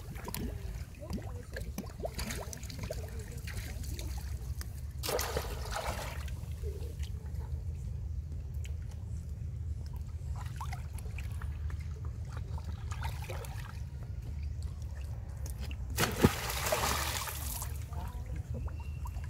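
Baby monkeys swimming and paddling in pond water, with light sloshing and trickling throughout and two bursts of splashing, about five seconds in and again near sixteen seconds, the second opening with a sharp knock. A steady low rumble runs underneath.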